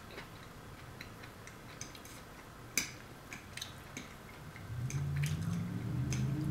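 Fork tapping and scraping on a ceramic plate while picking up olives and pasta, with soft chewing and mouth clicks, one sharper clink about three seconds in. A low voice, hummed or murmured, starts near the end.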